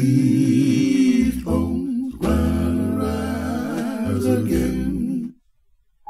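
Male a cappella gospel vocal group singing, with a strong low bass part, played back through an Edifier D32 speaker. The singing stops about five seconds in.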